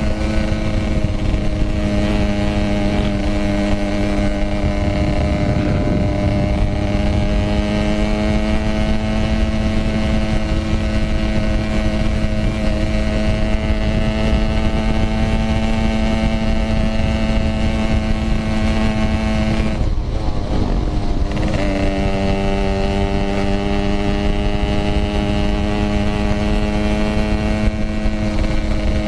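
Yamaha RX King 135cc single-cylinder two-stroke engine through a Packing Power aftermarket exhaust, running under way at steady cruising revs with a slow rise in pitch. About twenty seconds in the engine note drops off for a second or so, then picks up again. Wind rumble on the microphone underneath.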